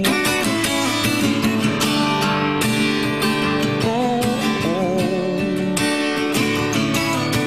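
Acoustic guitar strummed in a steady rhythm, playing a slow country ballad, with a short wavering sung note or two near the middle.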